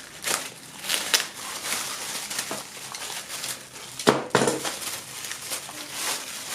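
Plastic packaging rustling and crinkling as it is handled and opened, with irregular sharp crackles and a single louder knock about four seconds in.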